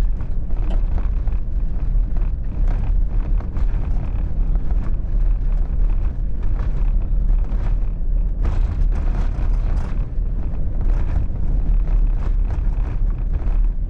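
Moving truck's steady low rumble of road and wind noise, with scattered crackles.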